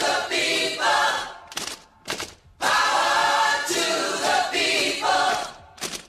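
A cappella vocal jingle: a group of voices sings two short phrases with held notes, with a brief break about two seconds in.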